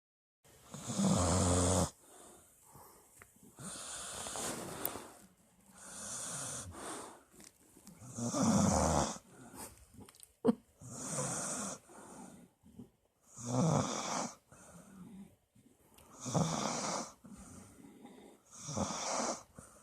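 Snoring: a sleeper's slow breaths swelling and fading about every two to three seconds, the louder ones with a low rattling buzz. A single sharp click about ten and a half seconds in.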